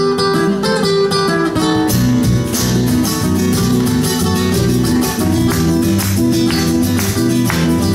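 Latin guitar ensemble playing: two acoustic guitars, electric bass guitar and cajón. A picked melody gives way to rhythmic flamenco-style strumming and percussion from about two seconds in.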